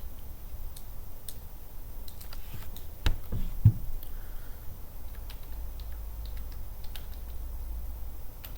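Typing on a computer keyboard: scattered key clicks, with a few louder knocks and thuds about three seconds in.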